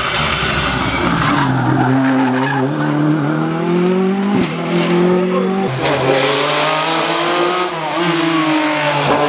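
Rally car engine revving hard, its pitch climbing and then dropping sharply at gear changes about four and a half and nearly six seconds in, over the hiss of tyres sliding on the stage surface.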